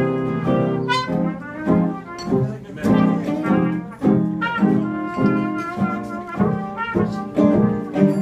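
Live jazz band playing the instrumental opening of a song, before the vocals come in, with a quick run of rising notes about a second in.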